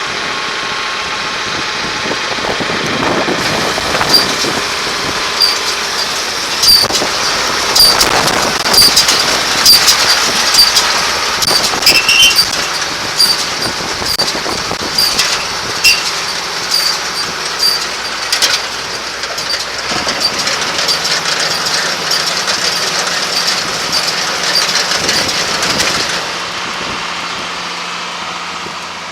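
A 2008 AGCO/Hesston 5556 round baler running behind a tractor, a steady mechanical rumble and hiss with many irregular sharp metallic clicks and rattles. The clatter stops about three seconds before the end, leaving a quieter steady running sound.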